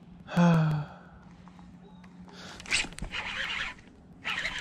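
A person's short, loud vocal grunt, falling in pitch, about half a second in. Later come two bursts of hissy rustling as the rod and reel are handled close to the microphone, over a faint steady low hum.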